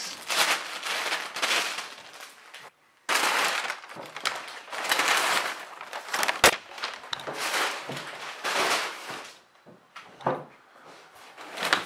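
Cardboard shipping box being handled and opened: irregular bursts of scraping and rustling from the flaps and packing, with one sharp snap about six and a half seconds in.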